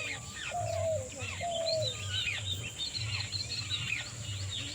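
A chorus of several birds calling at once: many quick, high chirps and trills overlapping, with a lower drawn-out call twice in the first two seconds. A steady high-pitched tone runs underneath.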